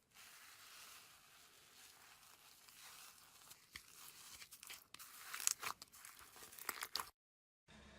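Hands working slime: a soft, tearing hiss as it is stretched, then crackling, popping clicks that grow busier and louder past the middle. The sound cuts off suddenly near the end.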